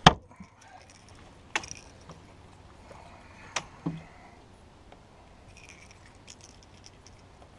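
Fishing tackle being handled on a boat: one sharp knock at the start, then a few lighter clicks and taps spaced out over the next several seconds.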